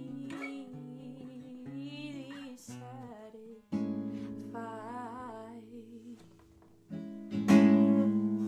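Acoustic guitar closing a song: picked notes under a woman's wordless sung line, then a strummed chord about halfway through that rings down while she holds a wavering note. A final, louder strummed chord near the end rings out.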